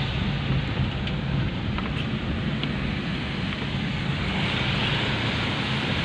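Steady in-cabin drone of a Toyota van on the move: a low engine hum under even tyre noise on a wet road.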